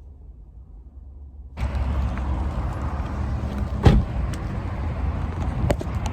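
A quiet car-cabin rumble that gives way suddenly, about one and a half seconds in, to a loud steady rumble and hiss of car and outdoor traffic noise. A sharp thump comes about four seconds in, followed by a few light clicks.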